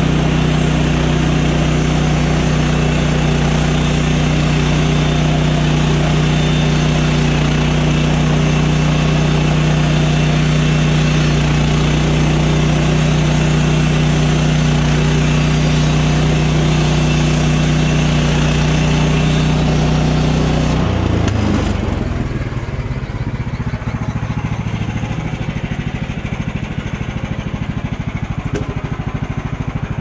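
Kohler engine on a Woodland Mills HM130 portable bandsaw mill running at full throttle while the blade saws through a red pine log. About two-thirds of the way through, the throttle drops and the engine falls to a lower, quieter idle.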